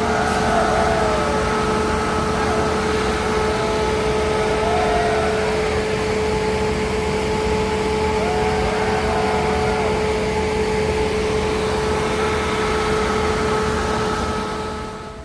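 Passenger train running: a steady rumble and rail noise with a constant hum, fading just at the end.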